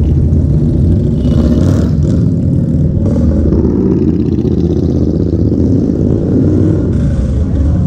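Motorcycle engines running steadily, a dense low sound with no break.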